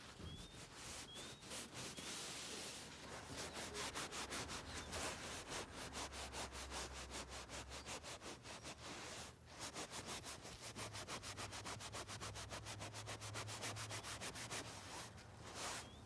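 Fast, even scratching or rubbing on fabric, many strokes a second, with a short break about two-thirds of the way through. A few short rising peeps from quail chicks come in the first two seconds and once near the end.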